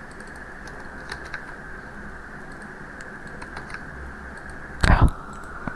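Faint, scattered clicks of a computer keyboard over a steady low hiss, with one brief louder thump a little before five seconds in.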